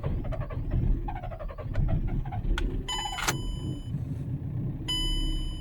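Starter cranking the VW Passat B6's 1.9 TDI diesel with first gear engaged, the engine catching after about three seconds of cranking and running on, while a dashboard warning chime beeps twice. The fault: it starts only in first gear, not in neutral; the fault memory points to the crankshaft position sensor, with the cause found in chafed under-bonnet wiring.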